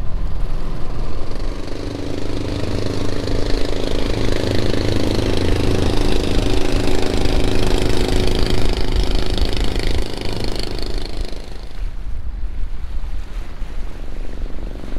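Boat engine running steadily under wind and water noise, with a droning tone that swells through the middle and drops away about twelve seconds in.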